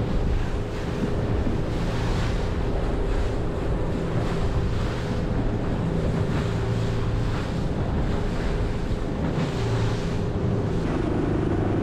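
A 6.5-metre RIB running through choppy sea: the engine's steady hum under water rushing past the hull and wind buffeting the microphone.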